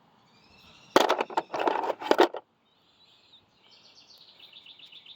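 A quick clatter of sharp clicks and knocks, about a second and a half long starting about a second in, from a handful of screwdrivers being handled and knocked together.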